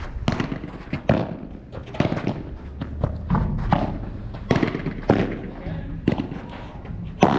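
Padel rally: a padel ball popping off rackets and bouncing on the court and walls, sharp hits about once a second, the loudest near the end.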